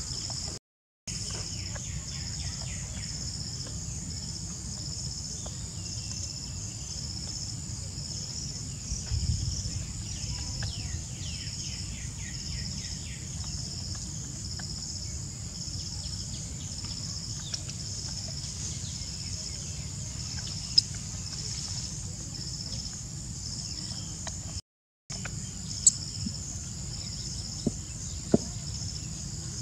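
Steady chorus of insects chirping in a fast, even pulse over a low rumble. A few sharp clicks sound in the last seconds, and the sound cuts out briefly twice.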